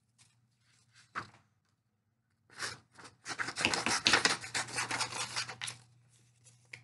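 Scissors cutting construction paper: a few isolated snips, then from about three seconds in a dense run of quick cuts and paper handling lasting about two and a half seconds.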